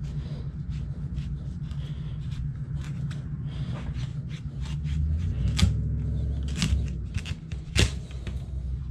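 Knife cutting into the hard rind of an acorn squash to take the top off: crunching and scraping, with several sharp knocks in the second half. A steady low hum runs underneath.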